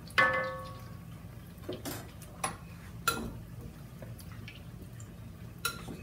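Mackerel patties sizzling in oil in a cast-iron skillet. Just after the start a utensil strikes a dish with a single ringing clink, followed by a few light clicks and taps of dishware.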